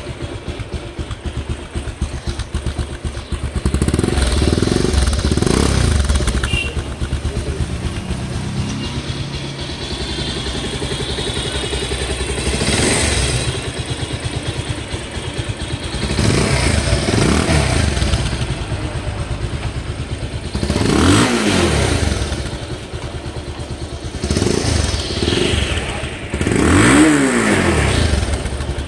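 Bajaj Pulsar 220F's single-cylinder engine running, idling between several throttle blips whose pitch rises and falls, the last and loudest near the end.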